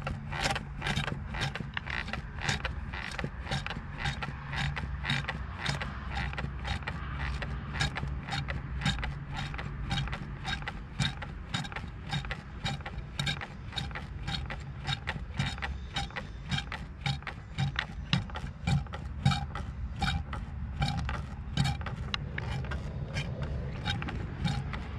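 Hand primer bulb on a diesel fuel line being squeezed over and over, each stroke a short click or squelch, about two to three a second. It is pumping air out of the fuel system into a bottle after a fuel filter change, to bleed the line before the engine is started.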